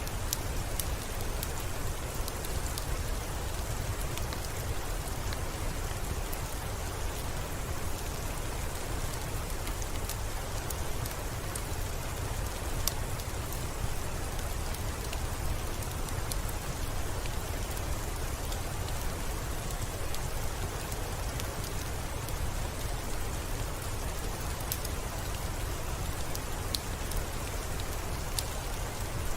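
Steady rain mixed with a crackling fireplace: an even hiss over a low rumble, with scattered sharp clicks throughout.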